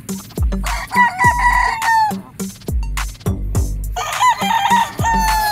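Roosters crowing twice, each crow a broken run of notes ending in a long, slightly falling note, over background hip-hop music with a deep bass beat.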